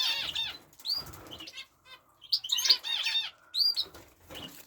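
Small aviary birds chirping in several quick bursts of high, curving notes, with short wing flutters between them.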